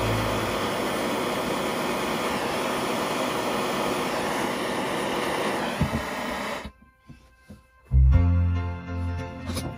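Propane torch flame hissing steadily, cutting off suddenly about two-thirds of the way through. Soft background music with piano-like notes comes in near the end.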